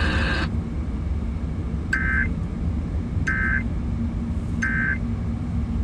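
Three short digital data bursts of an Emergency Alert System end-of-message code, evenly spaced about 1.3 seconds apart, signalling the end of the broadcast flash flood warning. They sound over a steady low hum and hiss of the radio reception.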